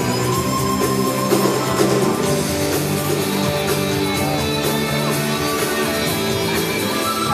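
Rock music from the show's soundtrack, heard through the stadium's loudspeakers, with long sustained chords.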